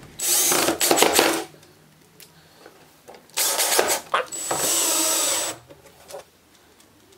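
Cordless drill driving screws through a metal drawer track into a melamine drawer side, in two runs: a short one at the start and a longer one in the middle that ends in a high motor whine.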